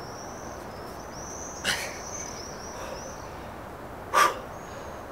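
Two sharp, forceful breaths from a man doing reps on a pull-up bar, about two and a half seconds apart, one with each rep; the second is the louder. Small birds twitter faintly in the background.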